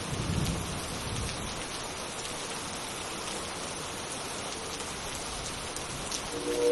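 Steady rain ambience, with a low thunder rumble in the first second and a half. Near the end a synthesized train horn chord starts up.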